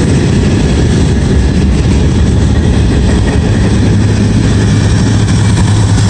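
Loud, steady noise of a Norfolk Southern freight train's cars rolling past close by on the rails. About halfway through, a steady low diesel hum joins it as two mid-train DPU diesel locomotives approach.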